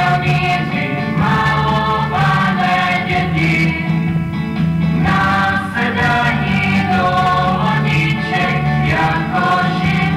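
Music: a choir singing a song, with a steady accompaniment underneath.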